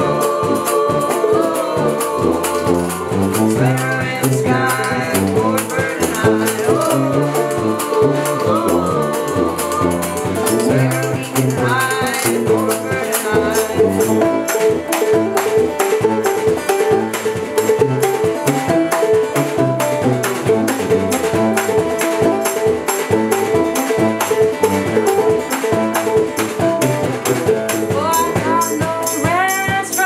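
Live acoustic band playing a song: acoustic guitar, banjo, a tuba bass line, and washboard and snare drum keeping a steady beat. A woman sings over it in the first ten seconds or so and comes back in near the end.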